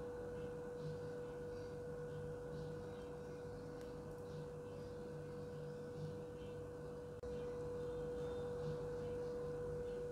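A faint, steady single-pitched tone that holds unchanged, over low background noise.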